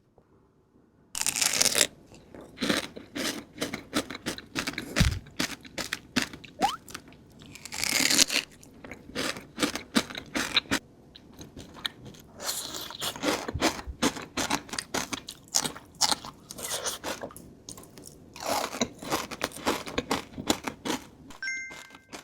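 Close-up crunching and chewing of a Dubai chewy cookie, its toasted kataifi-and-pistachio filling crackling crisply. It starts with a loud bite about a second in, then irregular crunchy chewing throughout.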